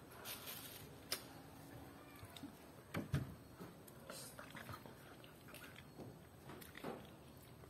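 Quiet clicks, small cracks and rustles, with a few sharper ones about 1, 3 and 7 seconds in: fruit being opened and peeled by hand.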